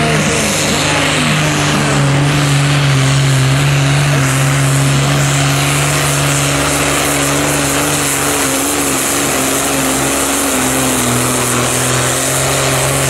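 Competition pulling tractor's engine running flat out at steady high revs, pouring black smoke as it drags a weight-transfer sled down the track.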